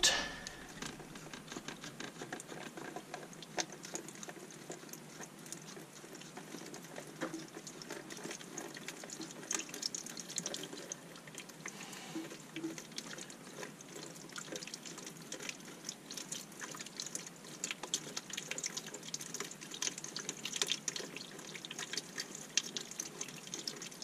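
The last bit of water in a toilet tank draining out around the loosened base of the fill valve, dripping and trickling into a bucket in small irregular drips and splashes.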